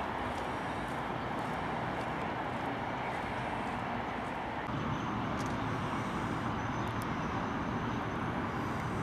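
Steady hum of distant road traffic, with no single vehicle standing out.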